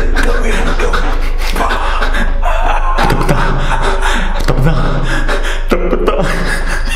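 A man crying, sobbing with gasping breaths, his voice breaking up in short broken bursts that grow stronger about halfway through.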